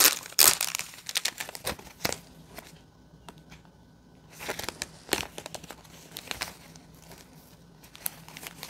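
Thin plastic crinkling and glossy paper rustling as a mini poster is unwrapped and handled. It comes in irregular bursts, with a quieter stretch about three seconds in.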